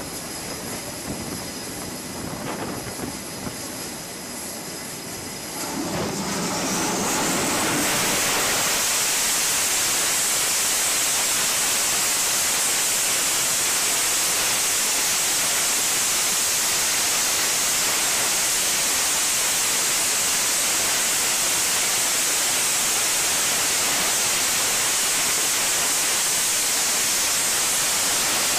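F/A-18's twin jet engines on a carrier catapult: a thin whine over a hiss, then about six seconds in they spool up, rising in pitch into a loud, steady roar at full launch power.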